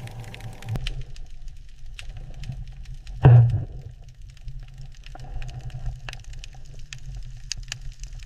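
Low steady rumble with many scattered sharp clicks, and one heavy thud with a ringing low tail about three seconds in.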